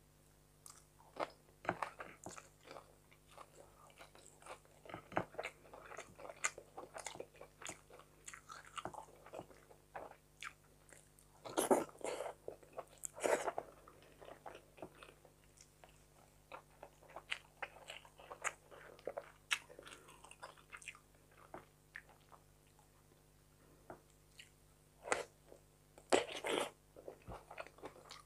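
Close-up eating sounds: wet chewing and mouth clicks while eating fried fish by hand, irregular throughout, with a few louder bites and smacks about twelve seconds in and again near the end.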